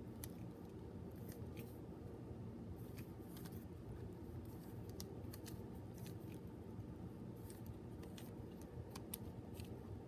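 Mini 3x3 plastic puzzle cube being turned by hand: quick, irregular clicks and clacks as its layers snap round, several a second in bunches. A steady low hum sits underneath.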